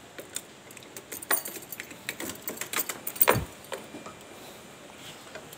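Handling noises on a parked motor scooter with the engine off: a run of light clicks and rattles, and one louder knock a little over three seconds in.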